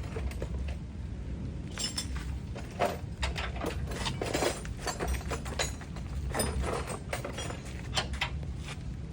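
Scattered metal clinks and taps of hand tools against car suspension parts, irregular and short, over a steady low hum.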